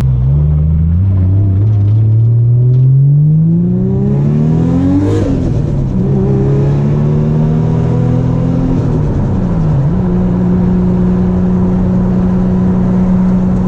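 Nissan Skyline R34 GT-R's RB26 straight-six, tuned past 900 hp, pulling up through the revs under acceleration, dropping sharply on an upshift about five seconds in, and climbing again. The revs dip briefly near ten seconds, then hold steady.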